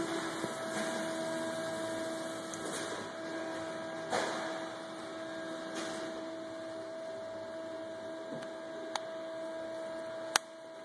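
Small plastic clicks from a Mini Cooper key fob being handled as its coin battery is pressed in past the retaining tabs and the fob is closed, the sharpest click near the end, over a steady low hum.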